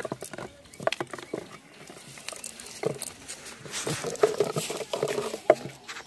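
Irregular patter of small taps and clicks, with one sharper click about five and a half seconds in.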